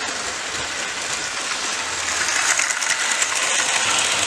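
HO-scale model train running past on its track: a steady rolling rattle of wheels with rapid fine ticks, growing louder about halfway through as the passenger coaches pass close.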